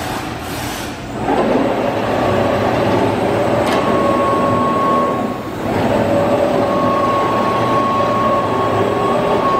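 Thermwood CS-45 CNC router running, a loud steady mechanical rumble with a whine from its drive motors that comes and goes. The noise dips briefly about a second in and again about halfway through.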